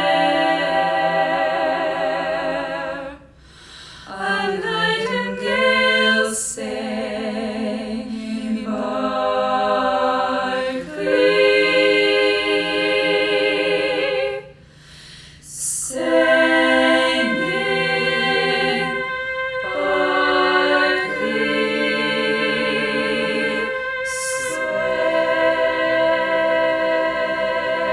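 A cappella voices singing lush close-harmony jazz chords in long held phrases, broken by two short pauses, with a few quick breaths or sibilant consonants between phrases.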